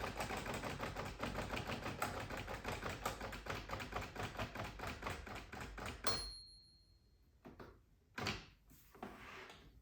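1946 Smith Corona Clipper portable typewriter being typed on in a fast run of key strikes for about six seconds. Then its margin bell dings once, a single ringing ding that signals the carriage is nearing the end of the line. A few soft clicks follow.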